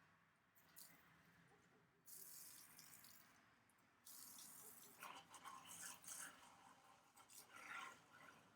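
Near silence with faint, irregular scratching and rustling of small plastic parts being handled and positioned, plus brief soft hisses.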